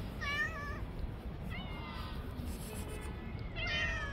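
Cats meowing: about four meows, the first wavering in pitch and the loudest near the end.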